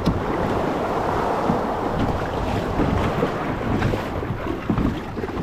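Wind buffeting the microphone over the steady wash of sea water around a kayak.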